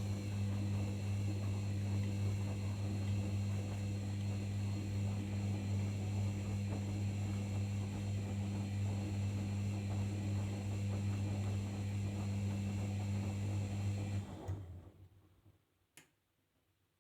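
Arçelik 5083 washing machine running with a steady electric hum and whir. The hum cuts off about fourteen seconds in and trails away, and a single click follows a little later.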